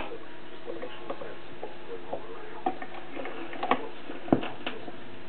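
Surface noise of a vinyl 45 rpm single played on a Bush RP50 record player's BSR deck: irregular crackles and pops from the stylus in the groove, a few louder pops in the second half, over a faint steady hum, in a quiet stretch of the song.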